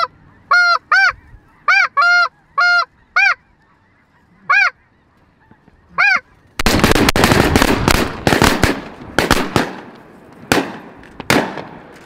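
Snow geese honking: about nine short, arching honks in the first six seconds, some in quick pairs. From about halfway they give way to a few seconds of loud rustling and crackling noise that fades near the end.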